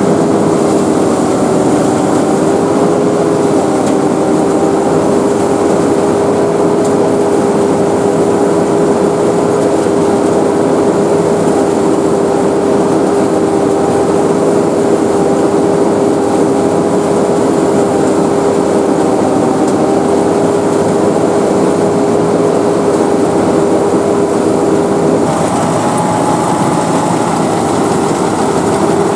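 Sakpattana SS100 mini rice combine harvester running steadily, its engine and machinery giving a constant hum with a steady whine. About four seconds from the end the whine shifts slightly and more hiss comes in.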